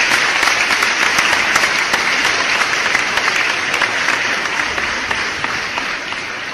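Crowd applause, a dense steady clapping that fades out gradually over the last couple of seconds.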